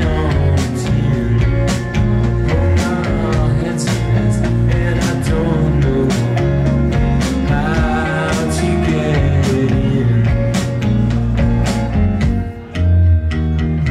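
Live indie rock band playing: electric guitars, keyboard and drums with a steady beat, and a man singing. The music drops away briefly near the end, then comes back in with a heavy low note.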